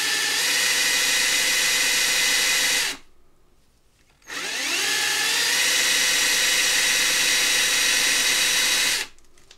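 Ryobi ONE+ cordless drill running, spinning a coin ring on a rubber polishing cone against 0000 steel wool to clean the fire scale off its edges. It runs about three seconds, stops for about a second, then spins up again with a rising whine and runs until near the end.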